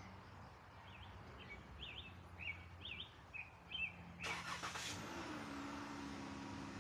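A small bird chirps a quick series of short notes. About four seconds in, a sudden rush of noise starts, and a steady low engine hum follows.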